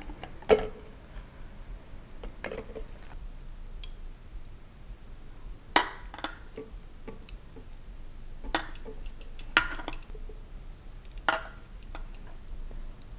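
Light kitchen clinks and taps, about six spread apart: tofu set into a blender cup and measuring spoons knocking against the cup and small glass jars as oil and soy sauce are measured in.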